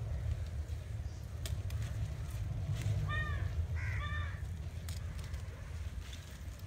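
Red amaranth stems are snapped and pulled up by hand, giving scattered small snaps and leaf rustles over a steady low rumble. A bird calls twice in the middle, two short cawing calls about a second apart.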